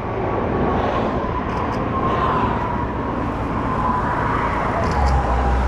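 Highway traffic passing close by: a steady rush of tyre and engine noise, with one vehicle's whine slowly falling in pitch as it goes past, and a deeper rumble rising near the end.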